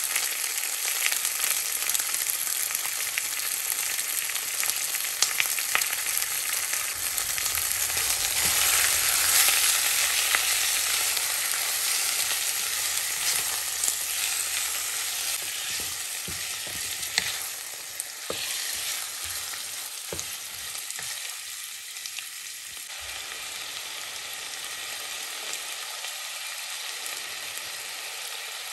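Bone-in chicken pieces sizzling as they fry in a stainless steel pot while being stirred with a wooden spoon, with a few sharp knocks of the spoon against the pot. The sizzle is loudest about a third of the way in and dies down after the middle.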